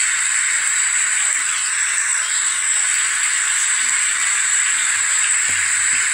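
Steady rushing roar of a Falcon 9 first stage's nine Merlin engines climbing through max Q, heard thin and hissy on the launch broadcast.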